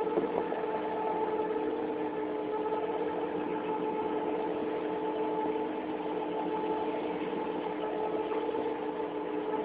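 Boat engine running at a steady, unchanging pitch while under way.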